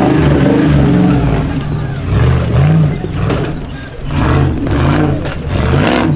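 Off-road truck engine revving up and down in repeated throttle bursts as it works a rough course, with a few sharp knocks in the second half.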